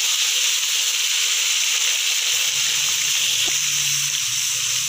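Ginger-garlic paste sizzling in hot oil in a kadhai, stirred with a silicone spatula, the paste being fried to cook out its raw smell. The sizzle is a steady hiss, and a low hum joins about halfway through.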